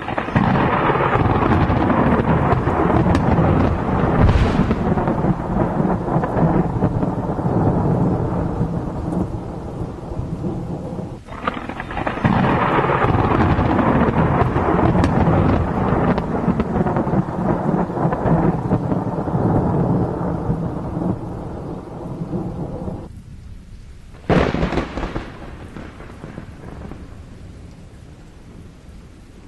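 Thunder rolling in two long, loud peals of about ten seconds each, then a sudden sharp crack that fades away, over a steady hiss of rain.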